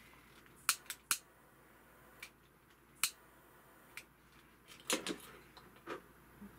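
Brass and glass parts of a Highmount Forest Hill candle lantern clicking and tapping as they are handled and fitted together: a scattering of light, separate clicks a second or so apart.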